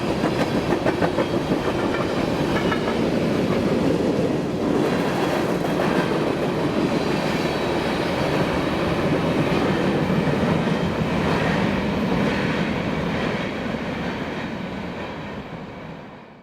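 Freight train rolling past, its steel wheels clicking over the rail joints with a steady rumble. The sound fades away over the last couple of seconds and then cuts off suddenly.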